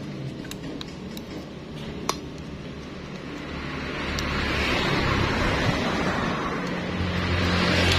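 A vehicle's engine running nearby, growing louder about four seconds in and staying up, with a few light metallic clicks in the first two seconds as the brake master cylinder parts are handled.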